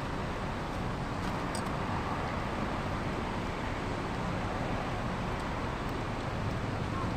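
Steady outdoor background noise: a constant low rumble with no distinct events.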